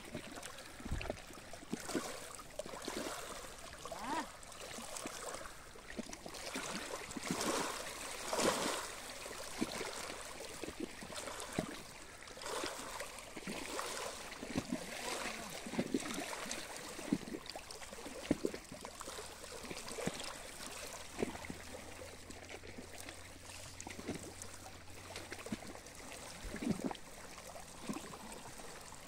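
Small ripples lapping at a shallow, stony reservoir shore, in irregular little splashes every second or so.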